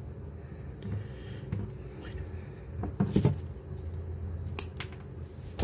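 Hands working thin two-core electrical cable and a small cutting tool, stripping and twisting the wire ends: light rustling and scraping, with a cluster of sharp clicks about three seconds in and another sharp click a little later.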